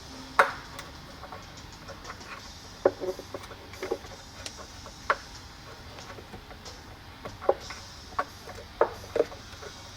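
Scattered small clicks and knocks of hardware and hand tools being handled inside a subwoofer enclosure while its terminals are mounted and wired, over a low steady hum.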